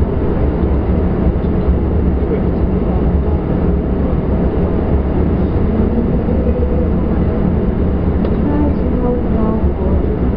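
Steady, loud low rumble of a vehicle driving at highway speed: road and engine noise.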